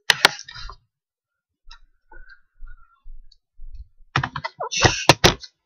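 Handling noise of a webcam computer being picked up and moved, close on its built-in microphone: two sharp clicks at the start, a quiet stretch with faint ticks, then a cluster of knocks, clicks and rubbing about four seconds in.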